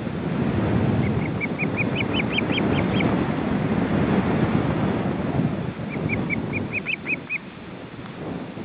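Osprey calling: two runs of short, high chirps that rise in pitch and grow louder through each run, the first about a second in and the second near the end. Heavy wind rumbles on the microphone throughout.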